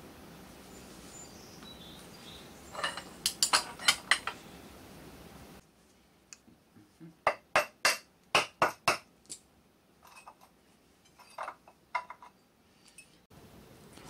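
Hammer blows on the metal hub and pedal hanger of an electric unicycle wheel, metal ringing on metal: a quick group of about six strikes, then after a pause a run of about eight harder strikes, trailing off into a few lighter taps.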